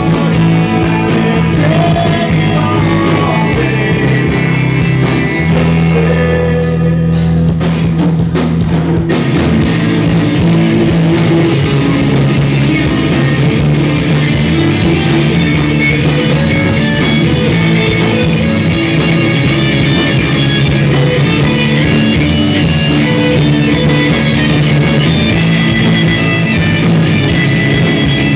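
Live rock band playing: electric guitars, bass guitar and drums, with sung vocals. About seven seconds in, the sustained low notes drop out briefly and drum hits come through before the full band returns.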